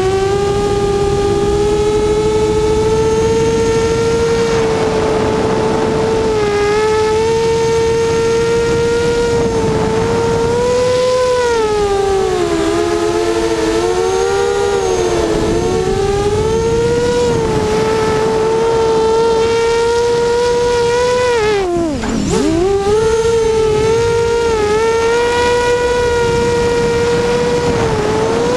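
Multirotor drone's electric motors and propellers whining in flight, heard from a camera on the drone. The pitch rises and falls as the throttle changes, and about 22 seconds in it drops sharply and swoops back up.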